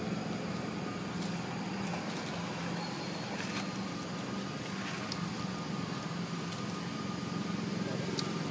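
A steady low motor drone, with a few faint clicks scattered through it.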